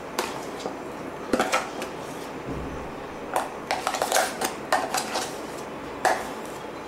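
Irregular clinks, knocks and scrapes as thick ground urad dal batter is scraped out of a mixer-grinder jar and the jar is tapped against a glass bowl, with a busy run of clinks in the middle and one sharp knock near the end.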